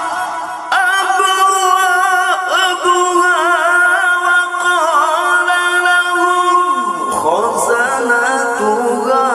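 A male Quran reciter (qari) chanting through a microphone: long, drawn-out melodic notes with wavering ornamental turns and no break for words. About seven seconds in, his pitch drops sharply and climbs back up into a new held phrase.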